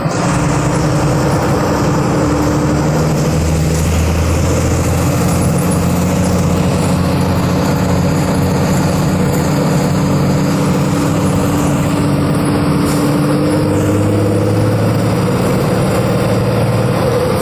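Diesel engine of a Volkswagen 17.210 EOD bus running steadily, its low drone shifting in pitch slightly twice, about three seconds in and again near the end.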